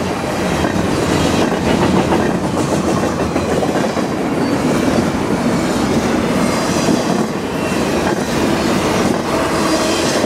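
Double-stack container well cars of a freight train rolling past, a steady rumble of steel wheels on the rails with some clicking over the joints.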